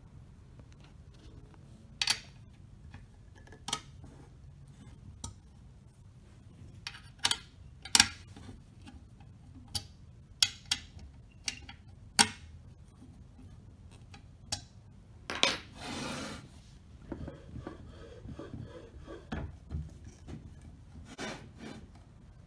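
Scattered metallic clicks, taps and scrapes as a hex key turns bolts and the button press frame is handled on its base plate, with one longer rubbing scrape about two-thirds of the way through.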